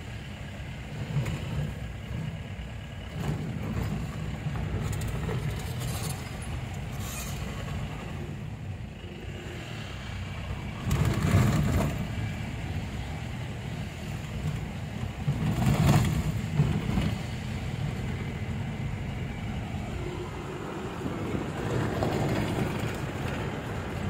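A car driving along a road: a steady low rumble of engine and tyres, with two louder surges about 11 and 16 seconds in.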